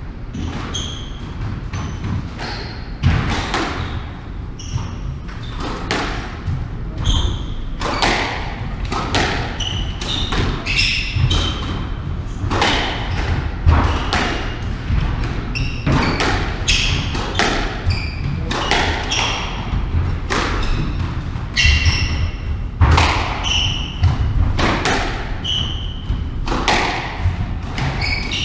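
Squash rally: the rubber ball cracking off rackets and the court walls, with sharp hits coming about once a second from around eight seconds in, and short high squeaks of players' shoes on the wooden court floor between them.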